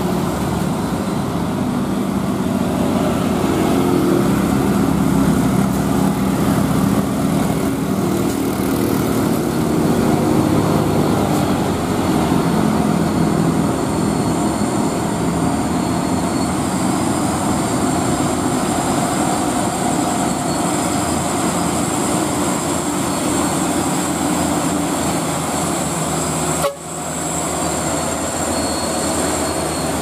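Diesel engine of a loaded Mitsubishi Canter dump truck pulling uphill, a steady, loud drone with passing motorbike and traffic noise. The sound breaks off abruptly about 27 seconds in, and another truck's engine follows close by.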